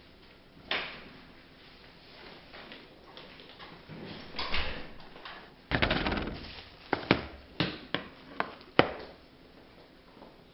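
A door being handled in a dark room: a sharp knock under a second in, rustling past the middle, then a loud burst of handling noise and about five sharp clicks and knocks.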